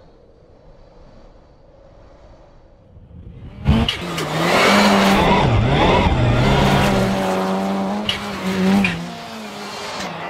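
Ford Fiesta ST rallycross car's turbocharged EcoBoost engine at racing revs as it slides on snow. It comes in suddenly and loud after about three and a half seconds of faint background, then holds a high, steady pitch with brief dips.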